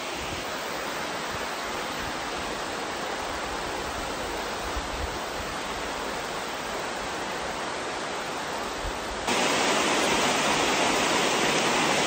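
Steady rush of creek water pouring over a low stone dam, which becomes suddenly louder about nine seconds in.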